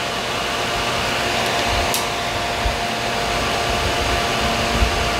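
Hair dryer running steadily: a constant blowing hum with a faint steady tone in it.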